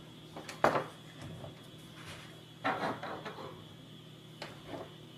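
A few light knocks and clatters of hands handling things on a tabletop: the assembled robot car and small hand tools being set down. There is a sharp knock about a second in, a short rattle near the middle and a softer tap near the end.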